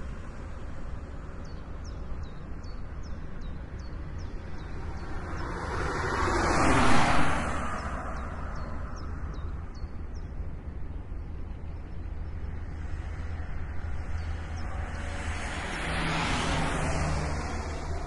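Ring-road traffic: a steady low rumble, with one vehicle passing close about seven seconds in, rising and falling away. A second, quieter pass-by comes near the end.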